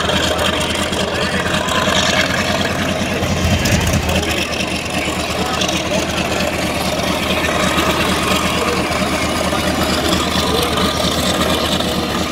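Bell 47 helicopter (the Batcopter) in low flight, its piston engine and rotor making a steady, continuous running noise with a pulsing low end.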